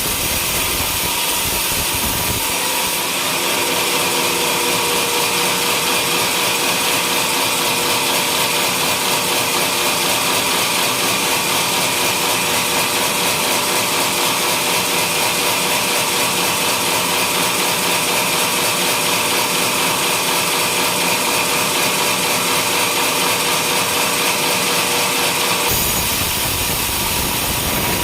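Home-made sawmill sawing a coconut palm trunk: a loud, steady saw-and-motor noise. The low rumble drops away about two seconds in and comes back near the end.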